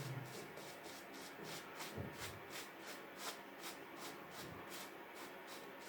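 Faint, even ticking, about four to five ticks a second, with one soft knock about two seconds in.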